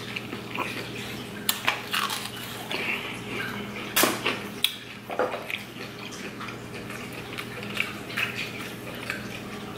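Aquarium filter running, a steady trickle of water with a low hum, under close-miked eating sounds: bites and chewing of fried shrimp, with sharp clicks, the loudest about four seconds in. A sip from a glass near the end.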